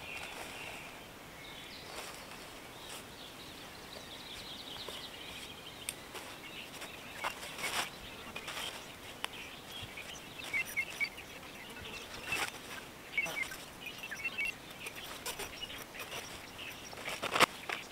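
Small birds chirping on and off over a faint, steady outdoor hiss, with scattered sharp clicks, the loudest cluster near the end.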